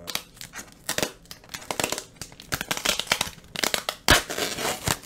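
Small cardboard shipping box being opened by hand: fingers scratching and picking at the cardboard in quick irregular strokes, with a sharp crack about four seconds in and a longer tearing rip right after.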